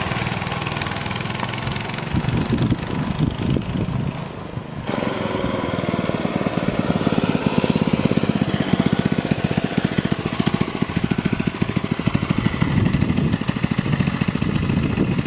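Single-cylinder Briggs & Stratton 5 hp flathead engine on a mini bike, running with rapid, even firing pulses. There is an abrupt change about five seconds in, and after that the engine's loudness swells and eases.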